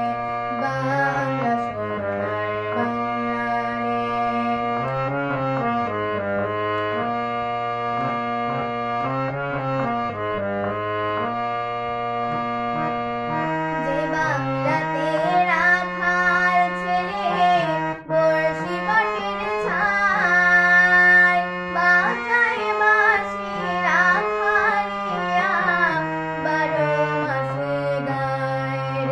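Harmonium played in held chords and melody, with a girl singing a Bengali song over it; her voice stands out most clearly from about halfway through.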